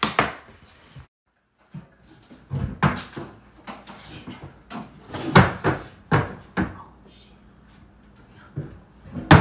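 A run of sharp clattering knocks, about a dozen over several seconds, as someone climbs in through a window, pushing through horizontal window blinds and stepping onto a folding metal chair.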